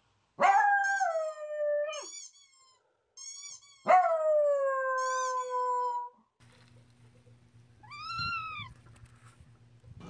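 Small long-haired dog howling: two long howls, each about two seconds, that slide down in pitch, with short high yips between them. Near the end there is a shorter call that rises and falls, over a low hum.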